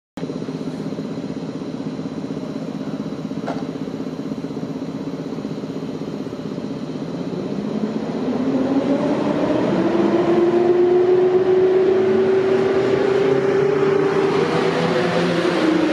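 EP07 electric locomotive starting a passenger train hard from the station: a steady hum at first, then the traction motors' whine rising in pitch and growing louder from about halfway through as it accelerates.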